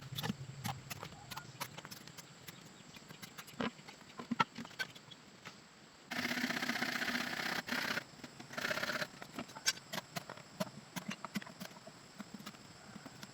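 Irregular light knocks and clicks, with a burst of rough noise lasting about a second and a half some six seconds in and a shorter one about three seconds later.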